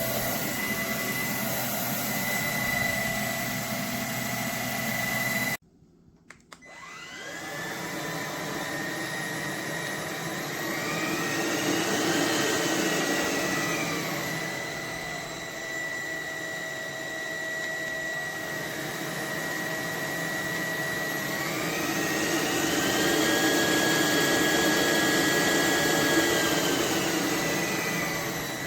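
Roborock H60 Ultra cordless stick vacuum running with a steady motor whine and rushing air. About six seconds in it cuts out abruptly with a couple of clicks, then its motor spins back up with a rising whine. Later the motor pitch rises and falls twice.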